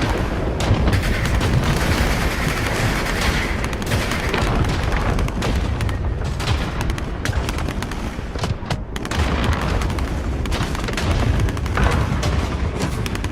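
AI-generated battlefield sound effect: dense, continuous gunfire in rapid volleys, with deep booms underneath.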